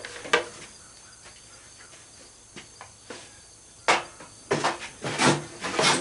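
Clicks and rustling of wire and metal parts being handled as wires are unhooked from the chipper shredder's switch, with a sharp knock about four seconds in and a denser clatter near the end, over a faint steady high-pitched whine.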